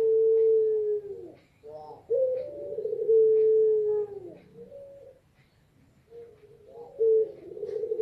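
Female puter pelung, a ringneck dove breed, cooing to call a male: three long drawn coos, each held on one low note and dropping at its end, with short notes between them.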